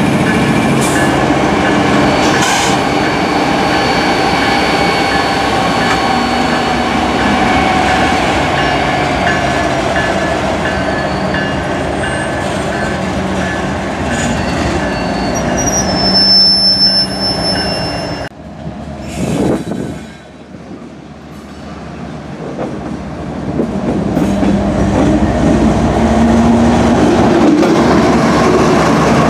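Kansas City Southern de México diesel-electric freight locomotives rolling slowly past, engines running, with high steady wheel squeal over the rumble of the wheels on the rails. About two-thirds of the way through the sound drops away suddenly, then builds back loud as a locomotive passes close.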